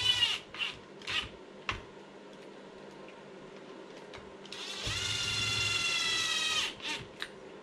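Small electric screwdriver whirring as it drives in the receiver-box lid screws: a short run that stops just after the start, a few light clicks, then a second run of about two seconds that winds up at its start and stops near the end.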